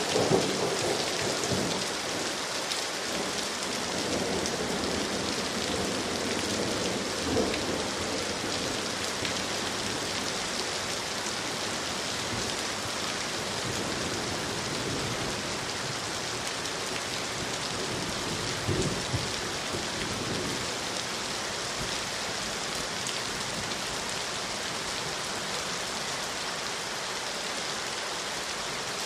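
Steady rain falling, an even hiss of many drops. A few brief louder low thuds break through near the start and about 7 and 19 seconds in.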